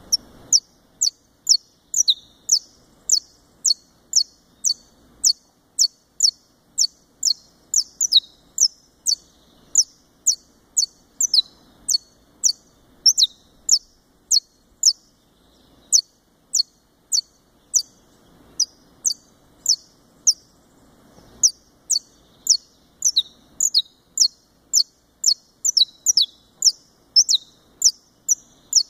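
Caged Brazilian saffron finch (Sicalis flaveola brasiliensis) singing a long, steady series of sharp, high notes, each falling in pitch, about two a second, with a short pause about two-thirds of the way through.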